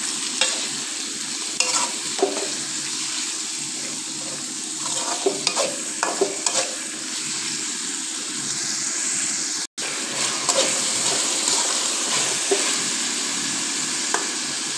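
Diced boneless chicken and onion sizzling in hot oil in a pan, with a utensil stirring and scraping against the pan now and then. The sound cuts out for an instant about ten seconds in.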